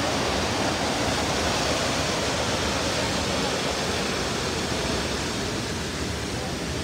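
Steady rush of falling water from Rifle Falls, a broad even hiss with no breaks that eases slightly toward the end.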